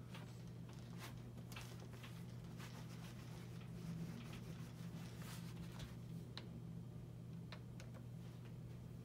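Faint rubbing and scraping of a clothes iron being worked over pants on an ironing board, with scattered light clicks, over a steady low hum.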